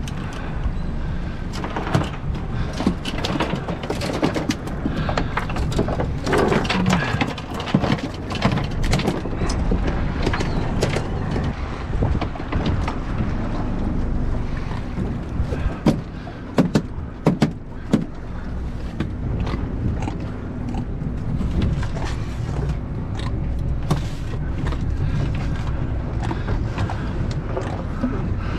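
Wind buffeting the microphone on a small boat, with frequent sharp knocks and clatter from fish and gear being handled on the fiberglass deck, a cluster of the loudest knocks a little past the middle.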